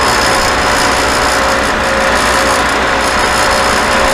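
WoodTek 25-inch dual drum sander switched on and running: a loud, steady whir with a constant whine.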